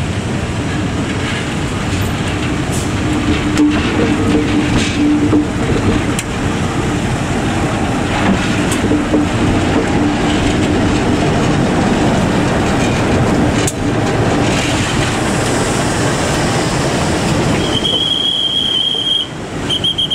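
GE CC203-class diesel-electric locomotive hauling a train slowly past at close range: the diesel engine runs under a steady rumble of wheels on rail, with a few sharp clicks over the rail joints. A high-pitched squeal sounds near the end.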